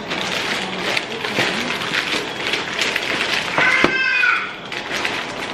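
Embutido frying in hot oil: a steady crackling sizzle. A brief high-pitched squeal cuts in about three and a half seconds in.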